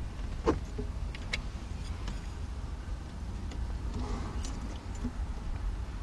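Light clicks and metallic rattles of a Corvette ignition switch assembly and its hanging keys being handled as the assembly is lowered into the steering column, the sharpest click about half a second in, over a low steady rumble.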